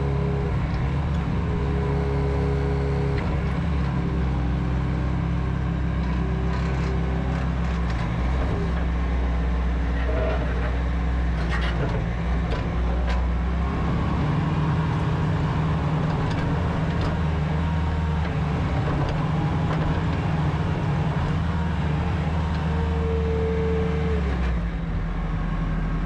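Bobcat T590 compact track loader's 66 hp diesel engine running steadily under load while the machine raises and lowers its bucket and moves on its rubber tracks, with a hydraulic whine that comes and goes and a few clanks. The sound falls away near the end.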